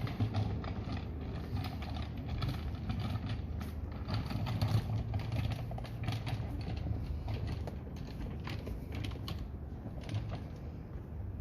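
Indoor mall ambience: a steady low hum with frequent irregular clicks, taps and rattles.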